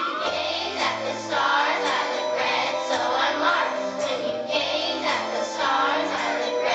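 A large children's choir singing a song over instrumental accompaniment.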